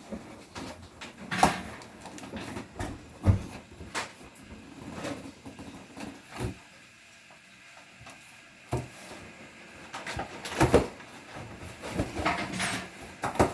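A series of irregular knocks and clunks, about eight of them a second or two apart, over a low background.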